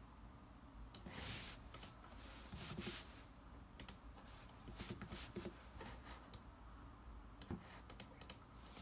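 Faint, scattered clicks of a computer mouse and keyboard.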